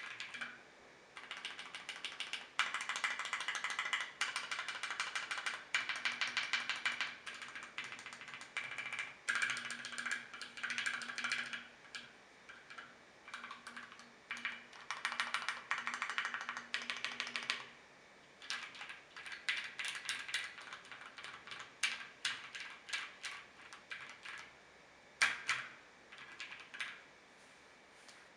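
Typing on a custom 60% mechanical keyboard with Gateron Black Ink linear switches lubed with Tribosys 3203, a polycarbonate plate and an aluminum case: fast runs of keystrokes broken by short pauses, over soft background music.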